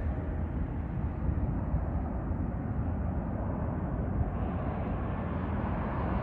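Steady low rumble of a Delta Airbus A220-100 jet on approach, heard from a distance, mixed with wind on the microphone.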